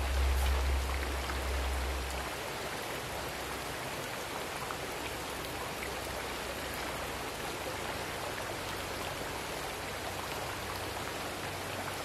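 Steady hiss of water, like rain or a stream, even across the range, with a low rumble during the first two seconds.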